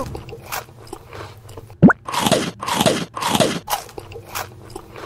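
Crunchy chewing and biting sound effects: a series of short crunches, then three long, loud crunching chews about two seconds in, with a quick rising tone just before them.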